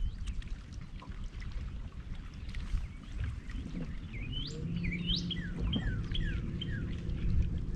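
Birds calling: a few swooping chirps about four seconds in, then a quick run of short descending notes. A steady low hum comes in partway through, over a low rumble.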